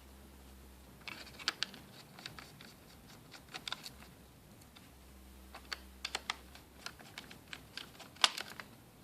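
Small sharp clicks and taps of a screwdriver and screws against a laptop's plastic bottom case as its screws are taken out, coming in short clusters, with the loudest click near the end.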